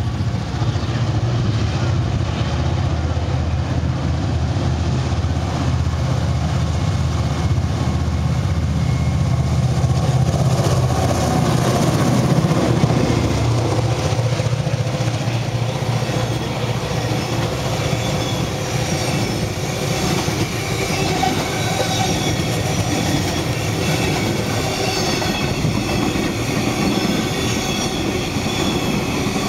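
Diesel-hauled freight train passing close by: a deep engine drone from the locomotives until about twelve seconds in, then a long string of hopper wagons rolling past with steady wheel clatter and high, steady squealing tones from the wheels.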